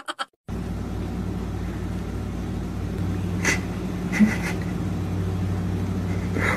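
A steady low mechanical hum, with a few brief faint clicks or chirps over it.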